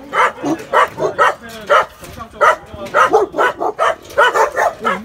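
Caged young dogs barking repeatedly, about three sharp barks a second, with two brief pauses.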